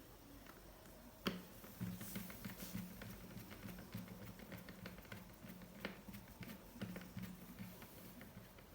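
Light clicks and taps of small screws and a screwdriver on a laptop's plastic base, with sharper clicks about a second in and again near six seconds. A faint low hum comes and goes underneath.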